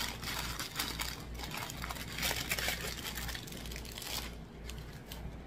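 Small plastic bags of diamond-painting drills crinkling and rustling as they are handled over a plastic-covered canvas, with many small clicks; it quietens after about four seconds.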